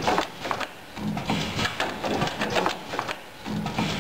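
Automatic screwdriver pad printing machine running through its cycle: a run of clicks and clacks from the indexing fixture conveyor and printing head, with a short hum. The cycle repeats about every two and a half seconds.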